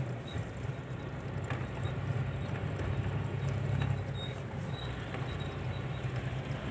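Vehicle engine running steadily with road noise while driving along a paved road, a low, even hum.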